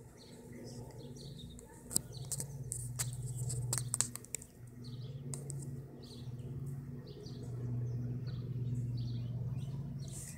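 Small birds chirping repeatedly in the background over a low, steady hum that swells and fades, with a couple of sharp clicks about two and four seconds in.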